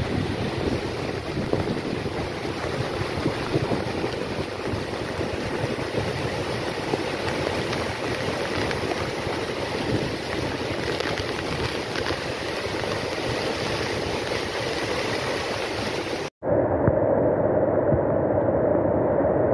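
Steady rush of a large waterfall and its flooded river, a continuous dense noise of churning water. About three-quarters of the way through it breaks off for an instant and comes back louder and duller, as a second recording of the falls cuts in.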